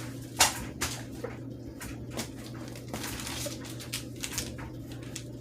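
Scattered clicks and knocks of small objects and packaging being handled, the loudest about half a second in, over a steady low hum.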